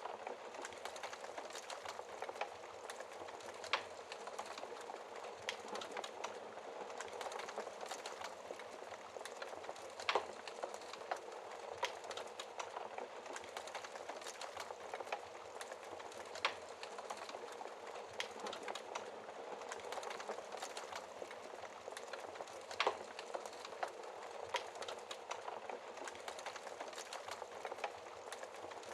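Fire burning behind a glass shield: a steady, slightly muffled rush with constant small crackles and a sharper pop about every six seconds.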